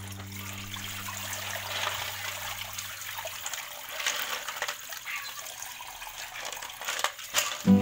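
Tap water pouring into an aluminium pot as hands stir and rub imbaw clams to rinse them, the shells clicking against each other and the pot. A steady low hum sits underneath and stops about three seconds in.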